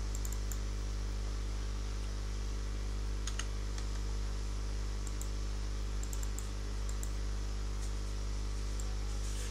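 A few faint, scattered computer keyboard keystrokes and mouse clicks over a steady low electrical hum.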